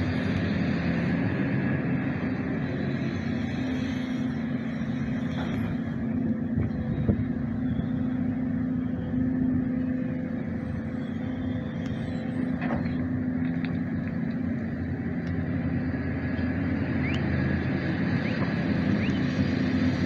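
Diesel engine of a Sumitomo SH300 hydraulic excavator running steadily under working load while it digs and swings, with a few faint knocks.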